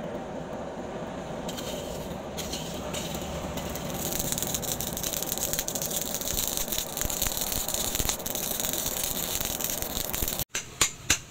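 Coal forge fire burning under forced air: a steady rushing with hiss and crackle, growing louder about four seconds in. Near the end it breaks off and hammer blows on the red-hot blade begin.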